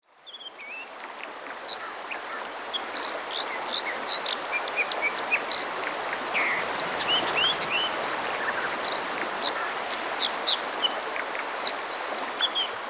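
Creek water rushing steadily, with many small birds chirping and calling over it; the sound fades in during the first second or so.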